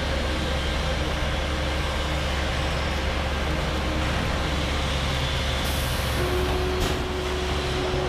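Heavy construction machinery engine running steadily with a low drone. A short air hiss comes about six seconds in, and the engine's tone settles lower just after.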